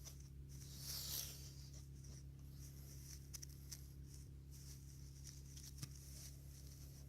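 Faint scratching and rustling of hands working potting soil and a plant pot, with a louder scrape about a second in, over a steady low hum.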